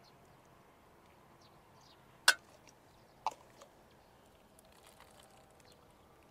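A clear plastic cup clicks sharply against a ceramic bowl twice, about a second apart, the first much louder, with a faint third tap just after. Faint bird chirps in the background.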